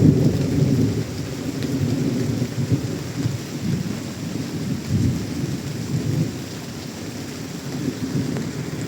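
Monsoon rain falling with a low, rolling rumble of thunder, loudest at the start and easing after about a second.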